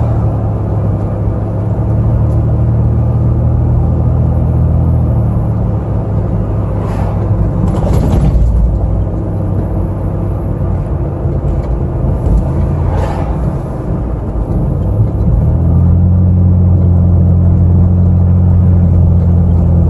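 Car engine and road noise heard from inside the cabin while driving: a steady low engine drone whose pitch drops about five seconds in and rises again near the end, with a few short whooshes, like other vehicles passing, in the middle.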